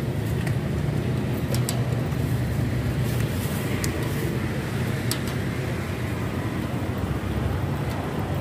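Steady low rumble of passing street traffic, with a few light clicks from the wire strainer baskets being handled in a steel soup pot.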